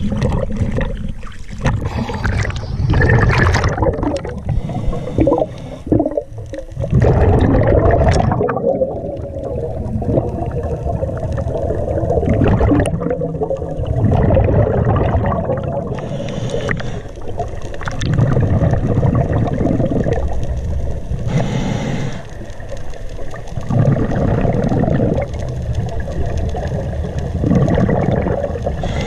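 Sea water sloshing and splashing at the surface for the first several seconds, then, heard underwater, a scuba diver's breathing through the regulator: a hiss, then a rumble of exhaled bubbles, repeating every few seconds.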